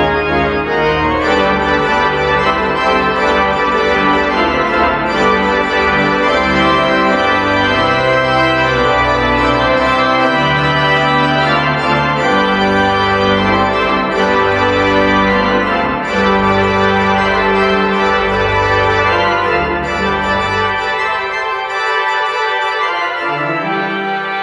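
Three-manual church organ played with both hands: sustained chords over a moving bass line. The deepest bass notes drop out about three seconds before the end.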